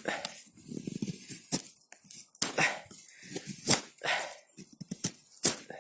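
Victorinox Rangerwood 55 pocket-knife blade shaving wood from a stick in quick strokes, each a short sharp scrape, about one a second. Softer low huffing sounds come between the strokes.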